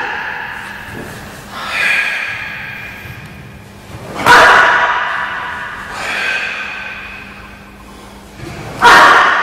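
Sharp snaps from a karateka's techniques during a kata, four in all, the loudest about four seconds in and near the end, each ringing on for a second or more in a large, echoing gym hall.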